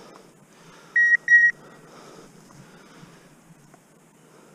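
Two short, identical electronic beeps from a hunting dog's beeper collar, sounding while the pointing dog holds point.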